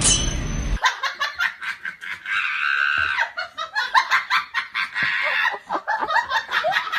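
A person laughing hard in rapid, high-pitched bursts, cutting in just under a second after a short tail of music.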